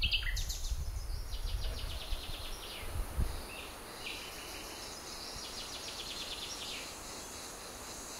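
Outdoor nature ambience of small birds chirping and singing fast high trills, over a low rumble that fades after about three seconds.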